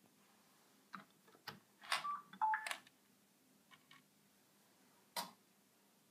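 Bosch WAY32742 washing machine being switched on: clicks from the programme selector knob and a few short electronic beeps at different pitches from the control panel, then one more click a little after five seconds.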